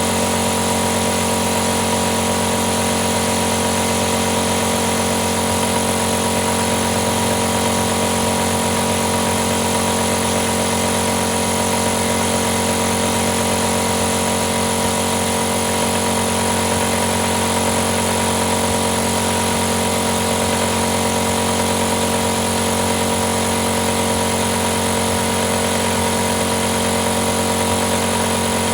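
A compressor running steadily, a constant mechanical hum with a hiss and no change in pitch or speed.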